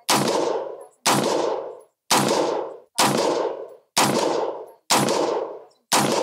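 Gunshots from a 10.5-inch-barrel AR-15 pistol firing 62-grain 5.56 rounds: seven shots at a steady pace of about one a second, each followed by a long decaying ring.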